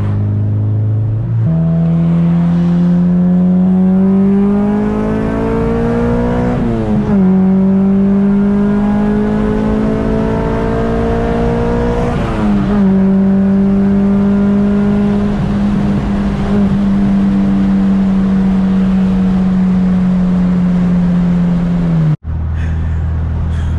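Honda K24 four-cylinder engine in a Civic Si coupe, heard from inside the cabin and pulling hard under acceleration. Its note climbs through a gear, dips at an upshift, climbs through the next gear and dips at a second upshift, then holds steady at highway cruising speed. Near the end it cuts off abruptly and comes back at a lower pitch.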